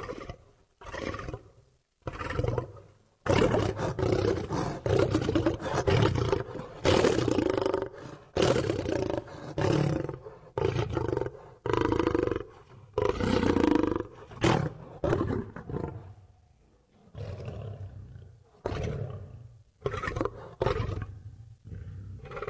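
Allosaurus sound effects: a string of roars of varying length with short pauses between them.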